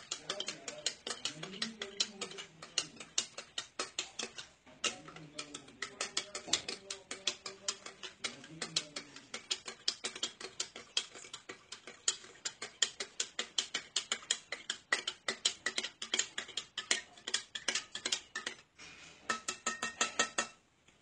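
A stirrer clinking rapidly against a glass, about five clicks a second, as soap pieces are stirred into water to dissolve them. The clicking stops near the end.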